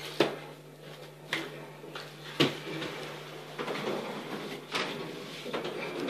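Roller skates knocking and thudding on the floor, several sharp knocks a second or more apart, over a faint steady hum.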